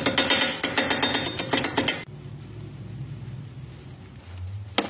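Ratchet wrench clicking rapidly, stopping abruptly about two seconds in; a faint low hum follows.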